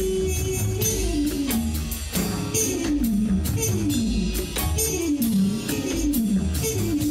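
Background music with a steady beat and a repeating melody line that falls in pitch.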